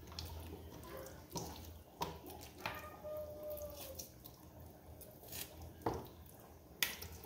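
Raw turkey neck pieces being washed by hand in a stainless steel bowl of water: water dripping and splashing as pieces are lifted out, with a handful of short sharp splashes scattered through.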